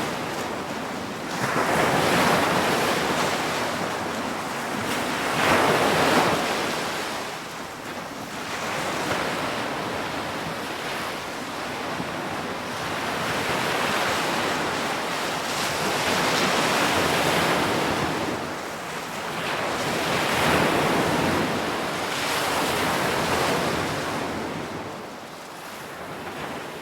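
Ocean waves breaking and washing on a shore, a steady surf noise that swells and ebbs in slow surges every few seconds.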